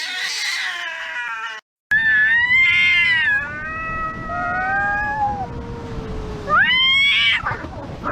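Cats yowling in a fight standoff: long, wavering, gliding howls, with two cats calling over each other in the middle and a rising yowl near the end. There is a brief gap about a second and a half in.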